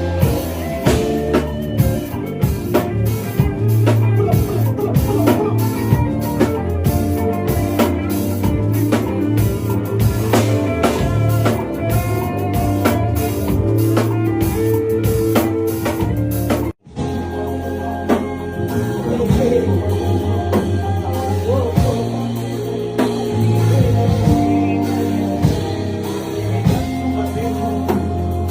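Music with singing over a steady drum beat and heavy bass. It cuts out suddenly for a moment about two-thirds of the way through, then starts again.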